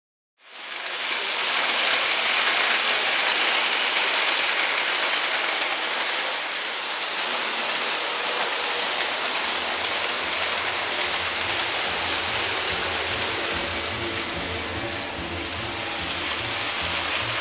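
Lionel O-gauge model train rolling along tinplate three-rail track: a steady rushing rumble of metal wheels on the rails, fading in just after the start.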